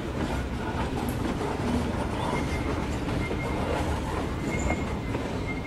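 N scale model freight train rolling along layout track: a steady rumble and clatter of small wheels on rail.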